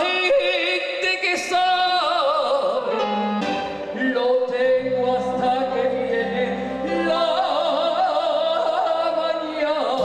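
A woman singing copla into a microphone, with a live band behind her; she holds long notes with a wide vibrato.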